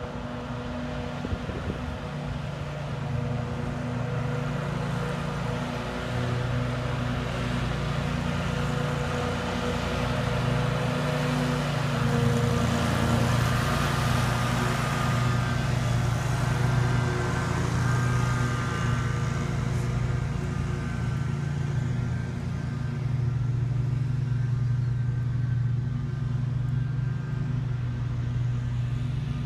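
Riding lawn mower's small engine running steadily, louder and brighter about halfway through as it comes near.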